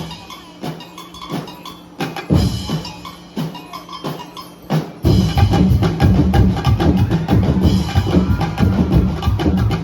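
Percussion-driven street-dance music with drums and wood-block-like hits. It is sparse and quieter at first, then the full drumming with heavy bass comes back in loudly about halfway through.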